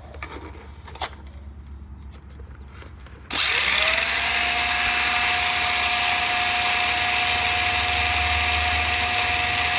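Radio Shack Golden Arrow RC car's small electric drive motor, powered by 18650 lithium cells, spinning up about three seconds in and then running flat out with a steady high whine.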